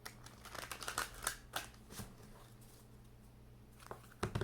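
Tarot cards being shuffled by hand: a quick run of card flicks and snaps for about two seconds, then a couple of soft taps near the end.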